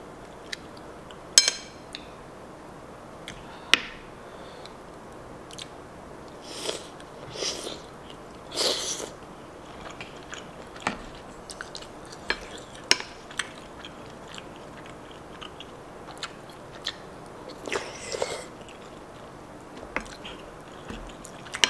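Close-miked eating sounds: sharp clicks as mussel shells are pulled apart and picked clean, then wet chewing of spicy seafood stew, with a few louder wet bursts around the middle and a wooden spoon scooping from the bowl near the end.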